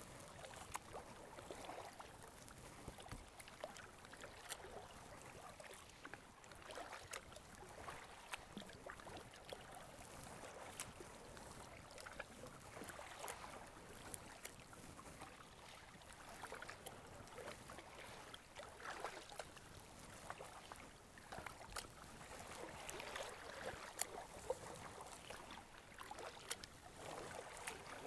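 Faint splashing and lapping of choppy river water around a kayak's hull as it is paddled, swelling every few seconds, with small drips and ticks.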